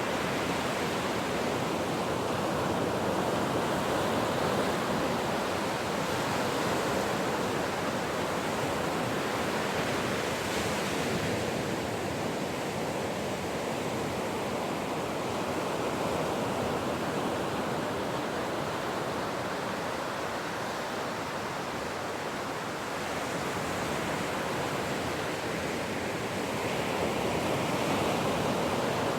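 Ocean surf: a steady rush of waves that slowly swells and eases over several seconds at a time.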